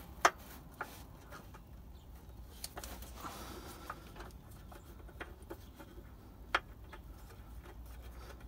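Sparse light metallic clicks and taps of a bolt being fiddled into its threads by hand, the sharpest about six and a half seconds in, over a faint low rumble.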